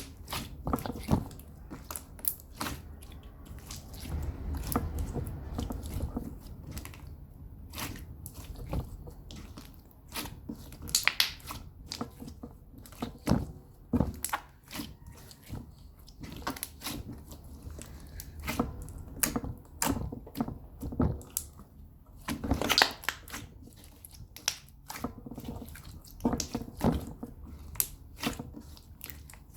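Bubble-filled slime squished and pressed by hand, making many sharp, irregular pops and clicks as the trapped air bubbles burst.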